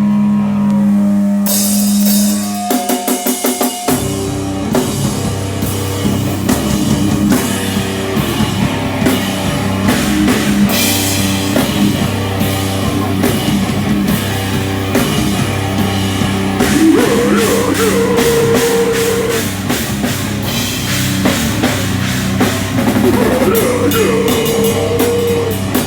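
Live heavy rock band playing, drum kit prominent. A held note with cymbal crashes and a run of short, stopped hits opens it, then the full band comes in hard about four seconds in.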